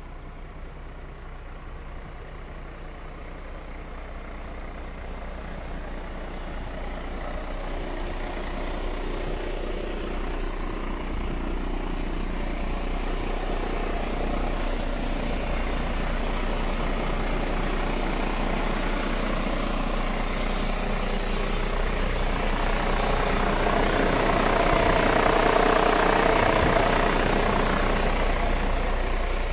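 MAN TGA 35.440 truck's inline-six diesel engine idling steadily, growing gradually louder and at its loudest a few seconds before the end.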